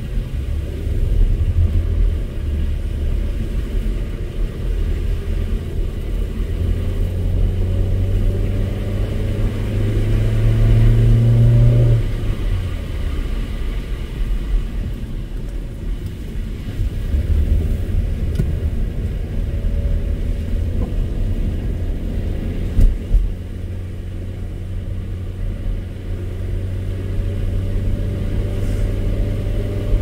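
A car driving on a snowy road, its engine and road noise running steadily. The engine note climbs for several seconds and drops sharply about twelve seconds in, then climbs again, with a single short knock a little past the middle.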